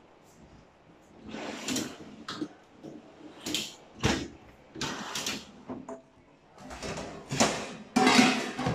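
Rummaging in kitchen cupboards: doors sliding and knocking, and containers being moved about. It comes in irregular scrapes and knocks that begin about a second in, with a sharp knock about four seconds in, and grows busier near the end.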